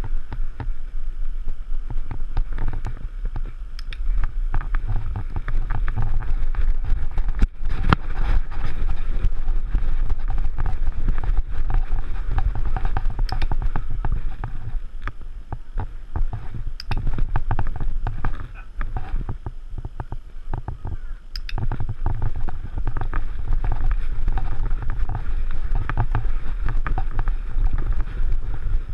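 Low rumble and irregular knocks and rattles of a harness-mounted action camera jostled as the dog walks, with wind buffeting the microphone.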